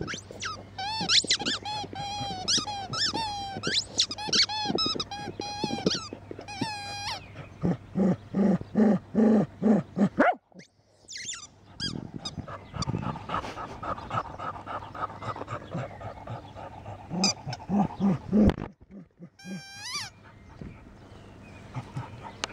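A cocker spaniel chewing a red rubber squeaky ball, squeezing out quick runs of high squeaks that bend in pitch. The squeaking comes in rapid strings for the first several seconds, then in shorter bursts with pauses.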